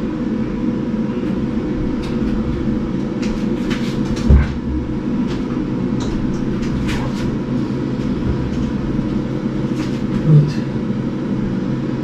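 Large side-by-side refrigerator being rolled on its small wheels across the floor: a steady low rumble, with a heavier knock about four seconds in and another a little after ten seconds.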